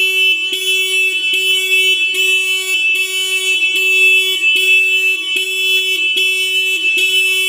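Starline V66 motorcycle alarm sounding after the armed bike is disturbed, as by a thief trying to take it. It gives a very noisy, steady-pitched tone broken by short gaps about every 0.8 seconds.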